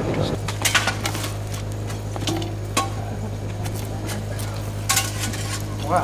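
An iron bar clinking and scraping against hot charcoal and slag at the mouth of a clay bloomery furnace, in a few sharp clicks and crackles, over a steady low hum.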